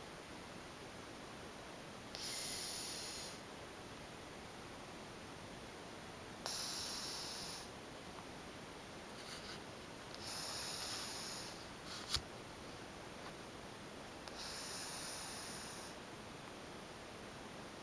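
A cat snoring: a breathy, hissing breath about every four seconds, with a single sharp click about twelve seconds in.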